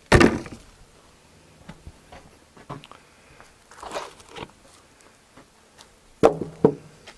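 Scattered knocks and thumps of sawn wood being handled, with no engine running. A loud thump comes right at the start, then a few light clicks and a rustle, and two sharp knocks in quick succession near the end.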